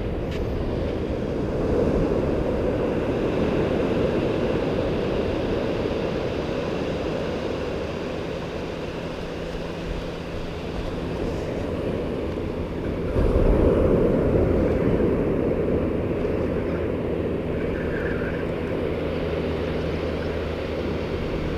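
Ocean surf washing onto the beach with wind buffeting the microphone, swelling louder about 13 seconds in as a bigger wave breaks. A faint, steady low drone runs underneath in the second half.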